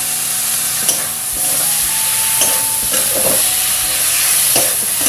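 Chopped tomatoes sizzling steadily in hot oil with onions and spices in a metal kadhai. A metal spatula stirs them, with a few short scrapes against the pan.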